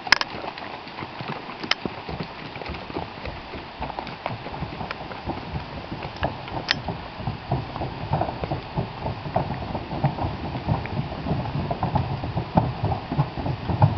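Horses' hooves clip-clopping at a walk on the plank deck of a wooden bridge, the hoofbeats getting louder toward the end as a saddle horse and a pack horse come closer. A single sharp click sounds right at the start.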